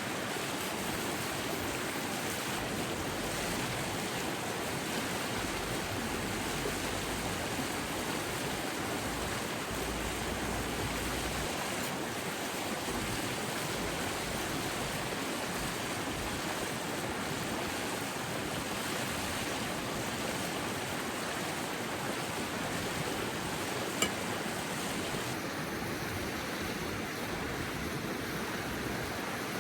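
Mountain river rushing steadily, with one sharp click late on.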